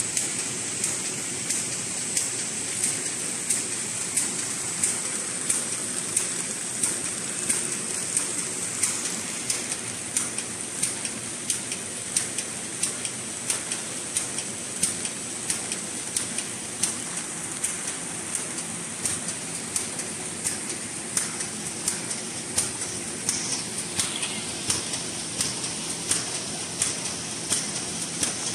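Automatic twisted-rope-handle paper bag machine running: a steady mechanical whir and high hiss, with a sharp clack repeating evenly about one and a half times a second.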